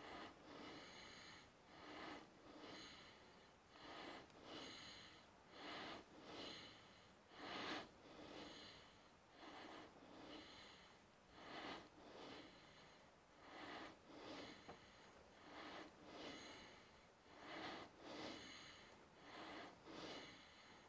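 A person breathing close to the microphone, soft breaths in and out about once a second, steady throughout.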